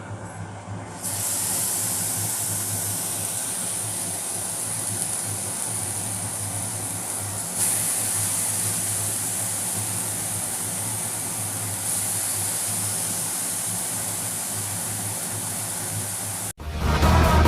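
Marinated fish frying in hot oil, a steady sizzling hiss. Music with guitar cuts in just before the end.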